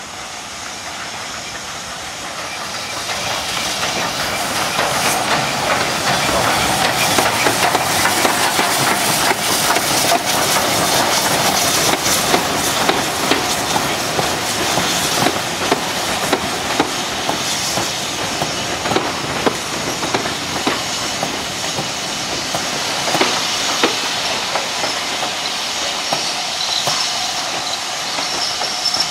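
A steam-hauled passenger train running past, growing louder over the first few seconds, with steam hiss and the wheels clicking over the rail joints as the coaches go by.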